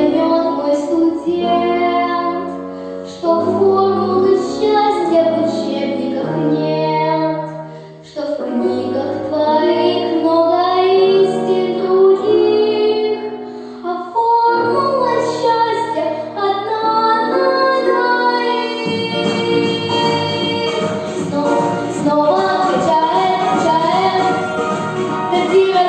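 A girl sings a pop song over a recorded backing track. About two-thirds of the way through, the accompaniment becomes fuller and busier.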